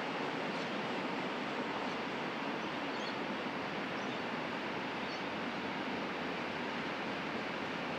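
Passenger carriages of a steam-hauled train rolling along the rails, a steady even noise, with a few faint high chirps scattered through it.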